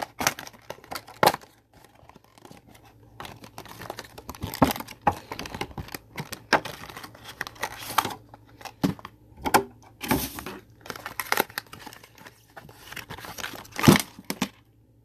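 Product packaging being torn and crinkled open by hand: irregular rips and crackles, with a sharp loud one near the end.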